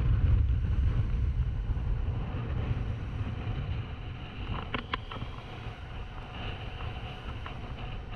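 Strong wind buffeting the microphone, a heavy uneven rumble, over a steady hiss of pouring rain and rough water. A couple of brief knocks about five seconds in.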